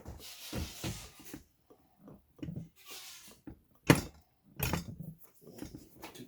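Irregular knocks, scrapes and clinks of a vintage Royal vacuum coffee maker being pulled and worked by hand to break a vacuum lock that is holding the coffee in the upper bowl, with one sharp knock about four seconds in.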